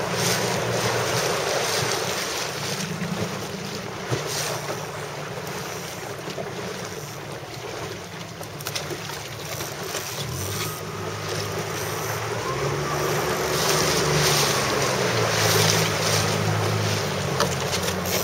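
Wind buffeting the microphone over rushing water from a boat moving on open water. A low hum grows louder about halfway through.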